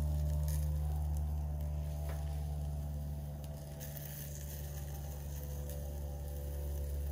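Meat sizzling and crackling faintly on a small tabletop charcoal BBQ stove, with a few scattered light clicks, over a steady low hum.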